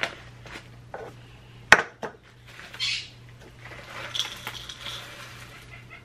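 Kitchen handling sounds: a measuring cup clinking and knocking as dry bird-food cereal mix is scooped out of its bag, with one sharp knock a little under two seconds in.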